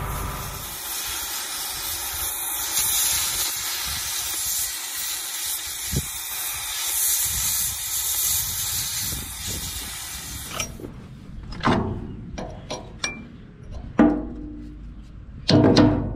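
Oxy-acetylene cutting torch hissing steadily as it heats a rust-seized sprocket on a fertilizer spreader's spinner drive. The hiss cuts off suddenly about eleven seconds in and is followed by a few scattered metal knocks.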